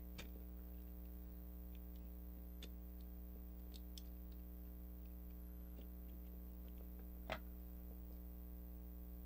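Faint, scattered clicks of small plastic gears and metal shafts being handled in the open gearbox of a Radio Shack Armatron toy robot arm, with one louder click about seven seconds in, over a steady low hum.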